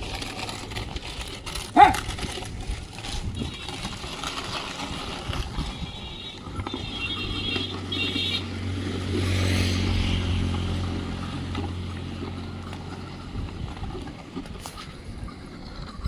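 An engine passes by, swelling to its loudest about midway and then fading, over steady outdoor noise. A short, sharp, rising call sounds about two seconds in.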